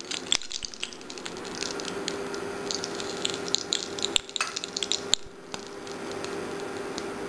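Whole spices (cumin seeds, bay leaf, black cardamom and a dried red chilli) sizzling in hot oil in an aluminium kadai, with scattered crackling pops. A spatula scrapes the pan near the start, and a steady low hum runs underneath.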